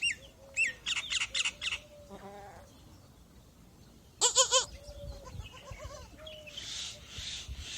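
Birds chirping with quick, sharp notes for the first couple of seconds, then a newborn kid goat gives one short quavering bleat about four seconds in.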